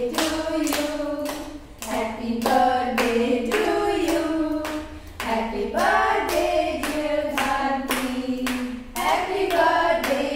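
A group of women's voices singing a song together while clapping in time, about two claps a second.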